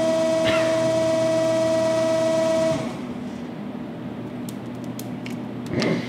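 Finn-Power hydraulic hose crimping machine running with a steady, pitched whine, which cuts off abruptly about three seconds in, leaving a quieter low hum.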